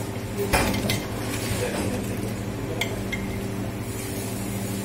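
Long-handled steel ladle knocking and scraping against a stainless steel pot while stirring vegetables in soup, with a loud clink about half a second in and two lighter taps near three seconds. A steady low hum runs underneath.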